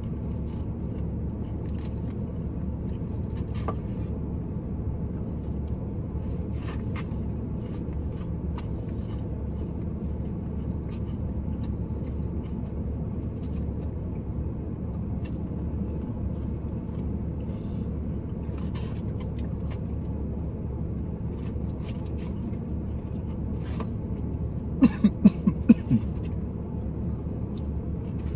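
Steady low rumble of a parked car idling, heard from inside the cabin, with a few faint clicks. About 25 seconds in comes a quick fit of five or six coughs as salad dressing goes down the wrong way.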